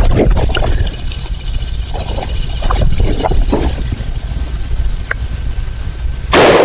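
A G-Force 12-gauge shotgun fires once near the end: a single sudden blast.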